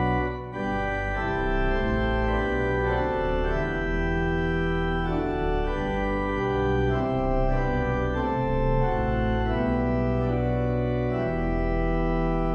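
Organ music: sustained full chords, changing every second or so, with a short break about half a second in.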